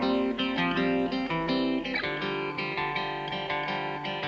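Background music led by guitar, with notes changing in a steady rhythm.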